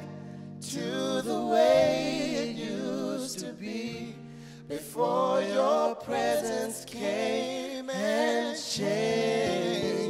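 A man and a woman singing a slow gospel worship song together, with long held notes, over nylon-string acoustic guitar accompaniment.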